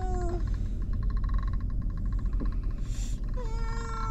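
A young child's voice in drawn-out, wordless sounds: a short falling whine right at the start, then a long, slowly falling whine starting near the end.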